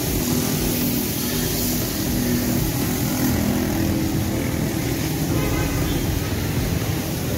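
A motor running steadily, its hum under an even hiss.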